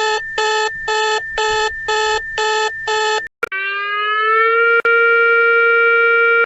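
Electronic emergency alert tones: about seven short multi-tone beeps, about two a second, over a steady high tone. After a brief break comes one long sustained tone that rises slightly in pitch and then holds.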